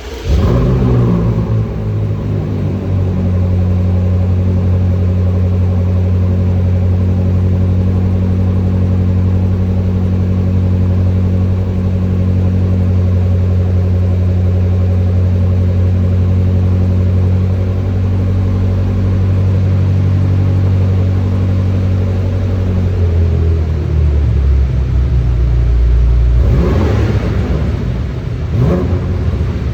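Twin-turbo V8 of a 2023 BMW M5 Competition, with the stock exhaust, cold-starting: it catches with a brief flare, then holds a steady high idle. About 23 s in the idle drops lower, and near the end it is revved several times.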